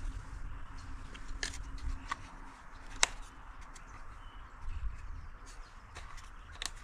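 A few sharp, separate plastic clicks as the air filter is unclipped and lifted out of a new Stihl MS 362 chainsaw, the loudest about three seconds in.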